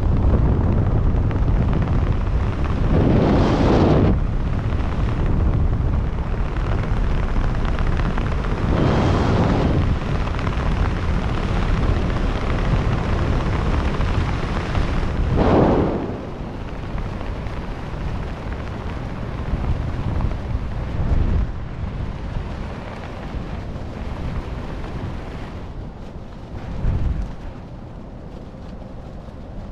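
Loud wind rushing over the microphone during a skydive, swelling and dipping unevenly, then dropping to a lower, steadier rush about halfway through.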